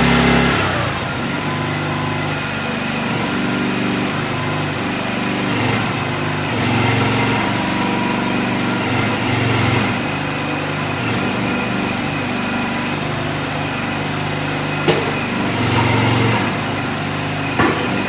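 Mini excavator's 13.5 HP Briggs & Stratton small gasoline engine running steadily, its note swelling a few times, with bursts of high hiss. Two sharp knocks come near the end.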